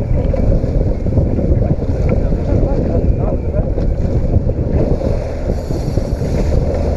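Steady, loud wind rumble on the microphone aboard a small boat at sea, with boat and water noise mixed in.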